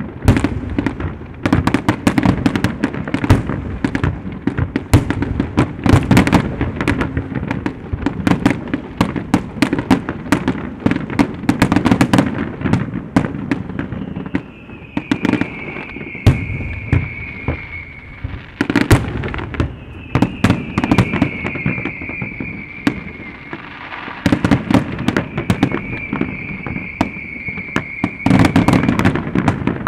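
Aerial fireworks display: a rapid, continuous series of shell bursts, bangs and crackles. In the middle stretch three long high whistles, each falling slightly in pitch, sound over the bangs.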